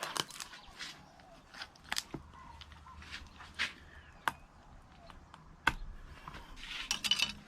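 Knife work on a bluefin trevally: scattered clicks and taps of the blade and fish against the cutting surface, with a short scraping rustle near the end.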